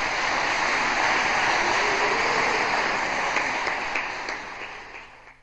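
Audience applauding in a steady patter, with a few single claps standing out as it thins and dies away near the end.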